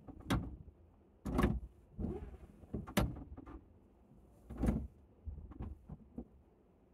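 Irregular clunks and creaks, about half a dozen, from the electric-converted Lotus Europa as it creeps forward in first gear on the clutch, heard from inside the cabin.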